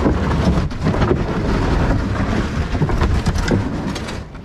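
Loud rumbling wind buffeting the microphone over breaking surf, easing slightly near the end.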